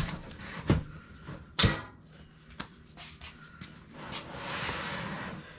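Clunks and knocks of a griddle stand's metal folding legs being swung open and locked into place: three sharper knocks with a brief ring in the first two seconds, then lighter taps, and a scraping rustle for about a second near the end.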